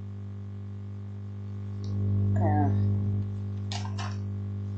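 Steady electrical mains hum, with a brief murmured voice about two seconds in and two short clicks near the end.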